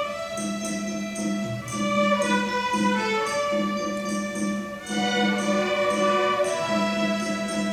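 String orchestra playing: a low note pulsed in a steady rhythm beneath moving melody lines in the violins, with short light taps on top.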